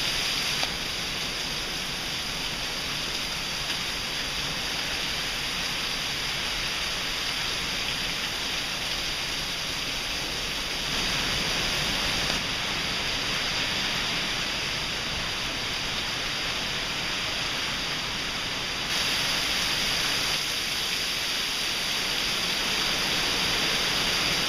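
Steady rain from a tropical storm falling, an even hiss that grows a little louder about halfway through and again near the end.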